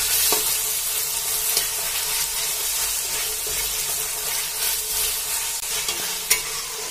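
Sliced onions and green chillies sizzling in hot oil in a kadhai, being sautéed and stirred with a metal spatula that scrapes and clicks against the pan a few times.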